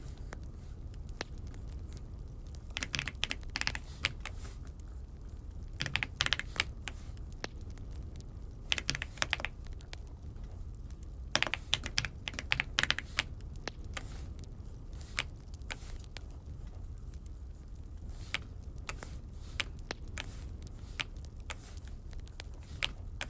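Typing on an Aula F75 mechanical keyboard: clusters of quick keystrokes with short pauses between them, sparser near the end.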